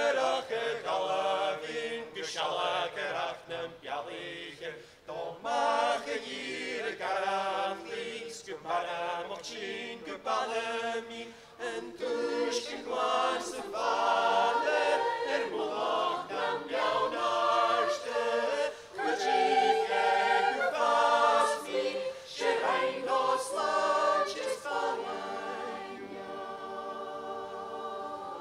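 Mixed choir of women's and men's voices singing unaccompanied, closing on a long held chord near the end.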